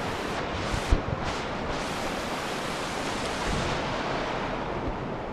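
Steady rush of a fast mountain river running over rapids, mixed with wind on the microphone. A couple of low bumps about a second in.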